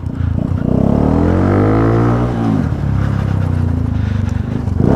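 Honda Pop 110i's small single-cylinder four-stroke engine, running with no air filter and an aftermarket exhaust, revs up under acceleration, drops back about two and a half seconds in, then runs steadily at a lower pitch.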